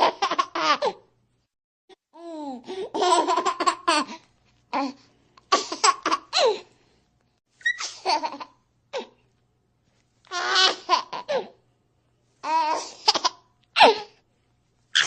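A baby's or young child's laughter, giggling in about seven short separate bursts with silent gaps between them.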